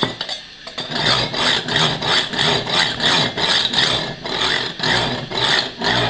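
A serrated bread knife drawn back and forth through a handheld sharpener's two flexible steel honing rods: a rasping, chattering scrape as the rods ride up and down through the teeth, about two strokes a second.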